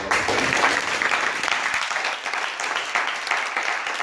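Audience applauding: many hands clapping together, starting abruptly and carrying on steadily.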